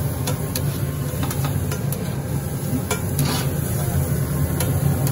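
Chopped vegetables sizzling in oil on a large flat tawa while a metal spatula scrapes and stirs them across the griddle, with irregular sharp clicks of the spatula on the metal over a steady low hum.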